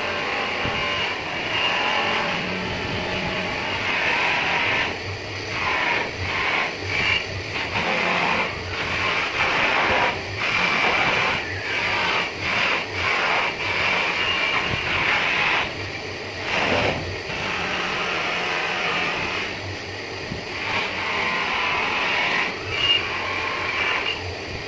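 Bench polishing motor running with its buffing wheel pressed against an aluminium motorbike front hub brake plate, the rubbing sound rising and dipping again and again as the part is turned and pressed on and eased off over a steady motor hum.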